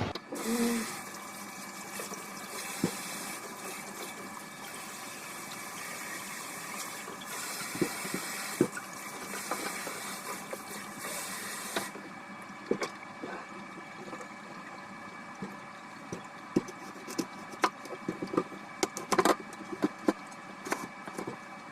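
Water running steadily from a tap, shut off about halfway through, then scattered light knocks and clicks of kitchenware being handled.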